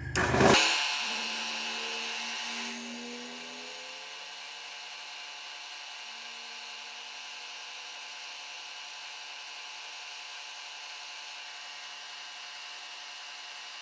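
End mill on a milling machine cutting a small brass part that is turned on a rotary table: a steady machining whine made of many fine tones, a few of which drift slowly in pitch. It is loudest in the first second and settles to a steady level about three seconds in.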